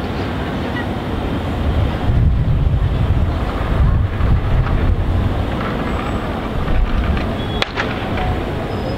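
Open-air street ambience with a steady traffic rumble, plus wind buffeting the microphone in low gusts from about two seconds in. A single sharp click comes near the end.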